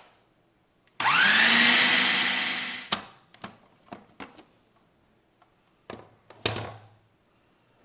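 An electric kitchen blending appliance's motor runs in one burst of about two seconds, its pitch rising as it spins up, blending cooked cauliflower with butter and yogurt. Light clicks follow, and a single knock near the end.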